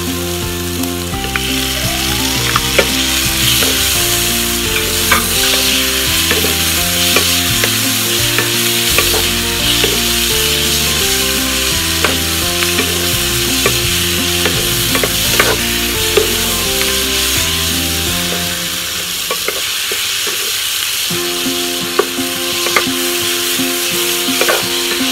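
Sliced onions and tomato sizzling in hot oil in a nonstick wok while a wooden spatula stirs them, with scattered sharp clicks of the spatula against the pan. Soft background music plays underneath and drops out briefly near the end.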